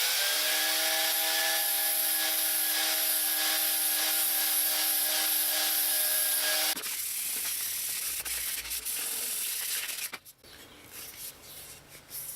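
Electric power sander running against metal, a steady motor tone under a strong abrasive hiss; it cuts off about seven seconds in, and a quieter hiss continues for about three more seconds.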